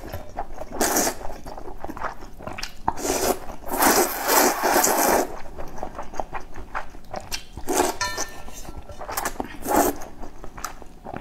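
Noodles being slurped from a bowl of soup in several long noisy draws, the longest about three to five seconds in, with wet chewing and small mouth clicks between.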